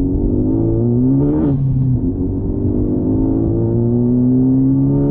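Honda Civic Si's turbocharged 1.5-litre four-cylinder on an aFe Power cat-back exhaust, heard from inside the cabin while accelerating. The engine note climbs, drops at an upshift about a second and a half in, then climbs again, with a raw, aggressive tone.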